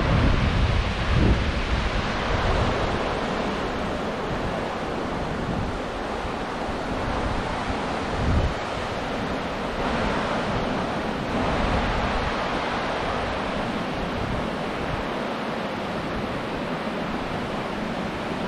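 Swift mountain river rushing over a stony bed, a steady rush of water. Wind gusts buffet the microphone in low thumps at the start, a second later and again about eight seconds in.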